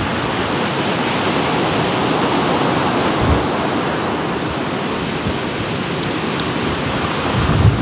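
Steady rush of surf from a rough sea, swelling a little about three seconds in and near the end, with faint scrapes of a knife shaving a wooden stick.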